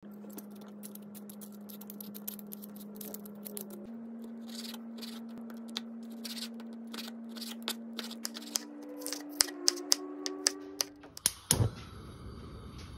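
Chef's knife cutting raw chicken on a bamboo cutting board: a run of sharp taps of the blade on the wood, coming thicker and louder in the last few seconds, with a heavier knock near the end.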